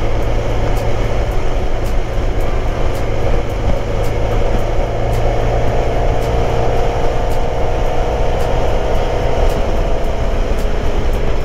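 Motorcycle riding at road speed: steady wind and road rush with the engine's drone underneath. The engine note rises a little about four seconds in and then holds.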